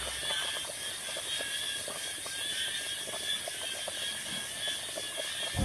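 Light, scattered clicks and taps of kitchen utensils during cooking, over a steady high-pitched outdoor background.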